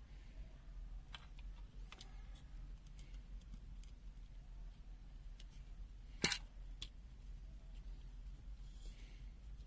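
Scattered light clicks and taps of the multimeter's plastic parts being handled during disassembly, with one sharper click about six seconds in.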